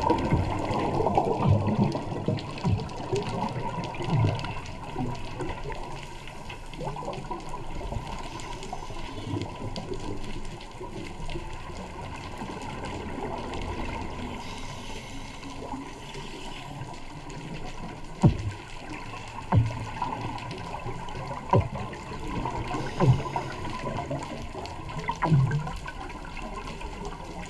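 Muffled underwater bubbling and gurgling of scuba divers' exhaled regulator bubbles, heard through a GoPro's waterproof housing. In the second half there are several sudden low thumps.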